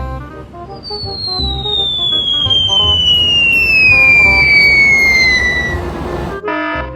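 A long whistle sound effect sliding steadily down in pitch for about five seconds over background music and noise. It cuts off abruptly near the end, where a repeated beeping tone begins.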